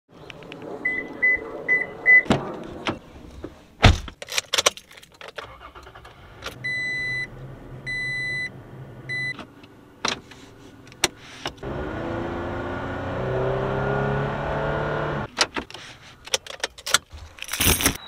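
Getting into and starting a third-generation Toyota Tacoma: keys jangling, clicks and knocks from doors and controls, a quick run of four short chime beeps, then three longer chimes. About two-thirds of the way in the engine starts and runs with rising revs for a few seconds. Then come more clicks and a short loud rush of noise near the end.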